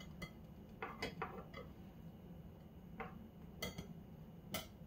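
Scattered faint taps and clicks of kitchen handling around an open electric waffle maker, as a finished waffle is checked and worked loose from the plates.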